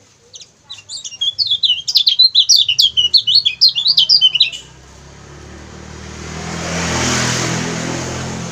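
Lemon-bellied white-eye (kecial kuning) giving a rapid, unbroken run of high chirps, its 'ciak ciak' call, for about four and a half seconds. Then a rush of noise swells, is loudest about seven seconds in, and fades.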